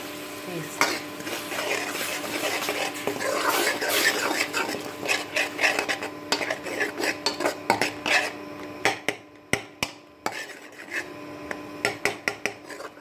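A steel spoon scraping and clinking against a stainless steel kadhai while stirring onion-garlic paste frying in butter, in quick irregular knocks and scrapes.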